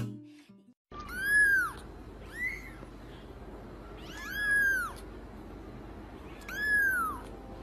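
Kitten meowing four times, high thin mews that each rise and then fall in pitch; the second mew is short.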